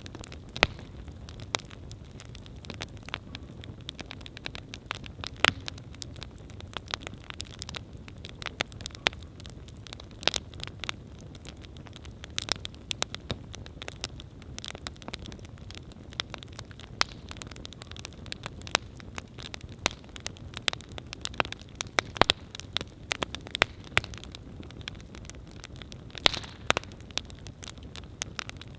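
Wood campfire burning, with frequent sharp, irregular crackles and pops over a low steady rumble of the flames.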